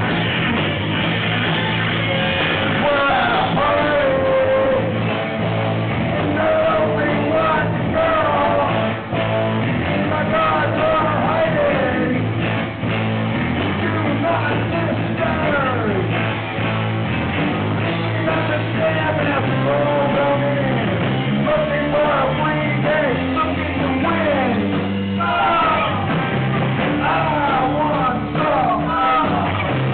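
Live rock band playing the intro of a song at a steady volume: electric guitar over a low accompaniment, with a voice line sliding up and down on top.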